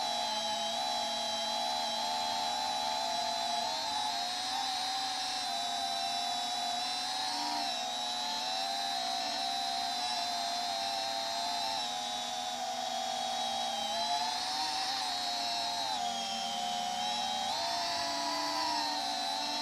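Brushless motors and propellers of a Holybro Kopis 3-inch cinewhoop quadcopter whining in flight. Its several tones waver together in pitch as the throttle changes, dipping about three-quarters of the way through and rising again near the end.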